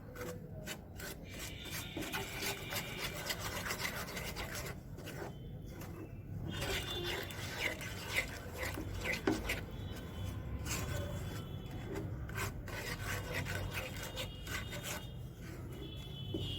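A cooking utensil stirring and scraping a thick ginger-and-jaggery mixture around a pan, in repeated irregular scrapes.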